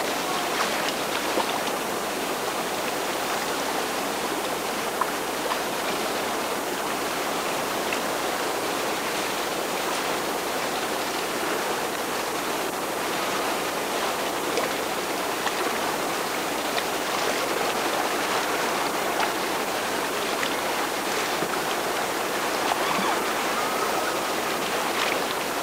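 Steady rushing of a large whitewater river rapid, the churning waves giving an even, unbroken wash of noise.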